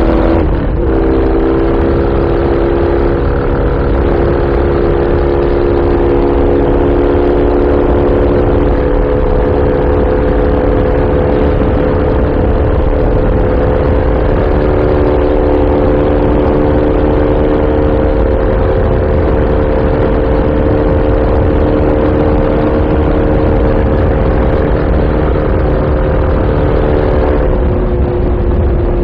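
Norton Commando's parallel-twin engine running steadily under way, heard from the rider's seat. The revs break briefly about half a second in, then hold even, and ease off slightly near the end.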